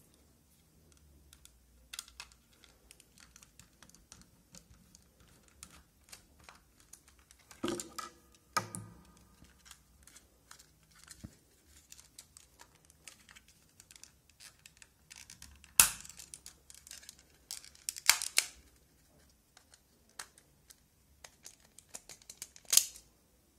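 The plastic case of a Logitech M220 wireless mouse being handled and taken apart: many light clicks, taps and scrapes of plastic. A few loud, sharp plastic clicks about 16, 18 and 23 seconds in come as the shell's clips are pried loose.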